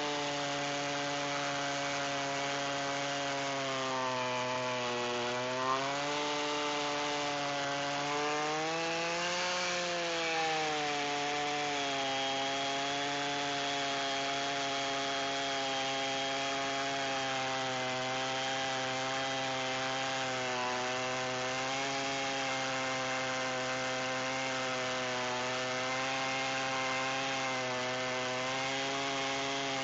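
Chainsaw running under load while ripping a sweet gum log lengthwise on a rail-guided chainsaw mill. The engine's pitch sags and recovers a couple of times in the first ten seconds, then holds steady through the cut.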